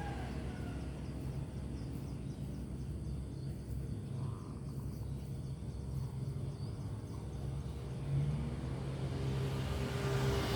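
A steady low mechanical hum, as from an engine running, under outdoor background noise.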